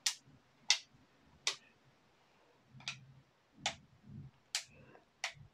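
Clear polycarbonate back shell of a Lifeproof SLAM phone case snapping onto an iPhone, corner by corner: a run of about seven sharp plastic clicks, irregularly spaced, with faint handling rustle between them.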